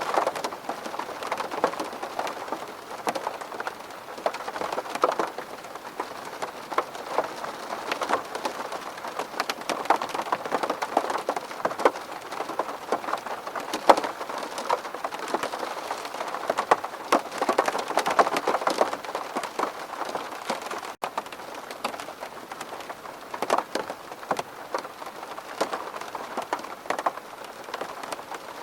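Steady rain falling on a window pane: an even patter with many individual drops ticking sharply on the glass, broken by a momentary dropout about two-thirds of the way through.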